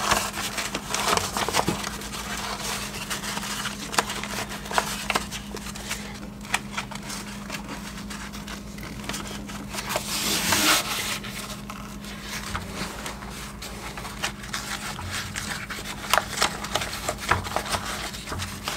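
Crinkling and rustling of a Schluter waterproofing membrane flashing being folded and pressed by hand around a linear shower drain, with scattered small clicks and a louder rustle about ten seconds in, over a steady low hum.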